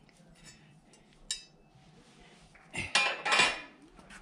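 Metal clinking and rattling as a steel power rake blade and hand tools are handled: a sharp clink about a second in, then a louder clatter lasting about a second near the end.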